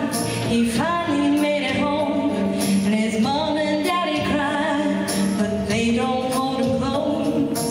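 A woman singing a song into a handheld microphone over instrumental accompaniment with percussion.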